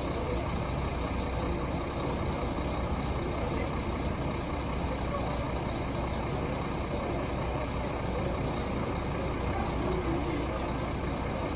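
Steady low rumble of a regional train idling at the platform, even throughout, with faint crowd chatter under it.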